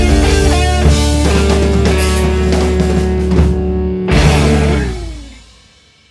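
Rock music with guitar and drums, ending on a final hit just after four seconds in that rings out and fades away to silence.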